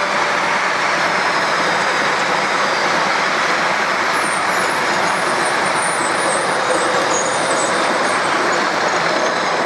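A passenger train running past at speed: a steady, loud rush of wheels on rail, with faint high squeaks in the middle.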